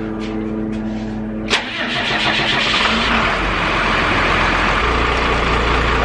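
A steady hum stops at a sharp click about a second and a half in, then the step van's engine starts and runs loud, its low rumble getting heavier about five seconds in.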